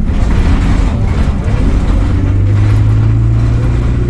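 Diesel engine of an Alexander Dennis Enviro bus running under way, a low steady drone with a deeper hum that grows stronger about halfway through.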